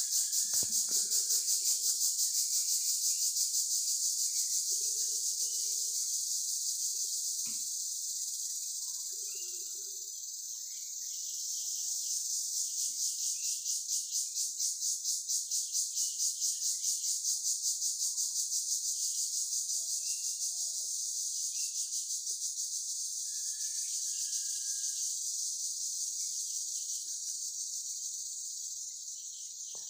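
A steady, high-pitched chorus of insects chirping, pulsing rapidly and evenly.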